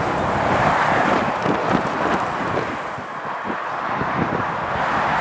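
Motorway traffic going by at speed: articulated lorries and cars making a steady roar of tyres and engines, with wind buffeting the microphone. The noise eases briefly a little past halfway, then builds again.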